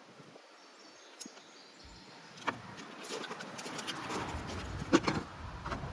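A few sharp clicks and knocks of plastic car side-mirror parts being handled, the loudest about five seconds in, over a rustle that builds after a quiet start.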